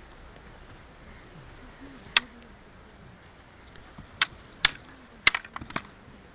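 Gatka sticks clacking together in a sparring bout: a single sharp crack about two seconds in, two more around four and a half seconds, then a fast flurry of clacks near the end.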